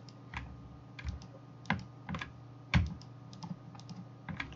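Computer keyboard and mouse clicks: about ten separate clicks at irregular spacing, the loudest a little under three seconds in, over a faint steady hum.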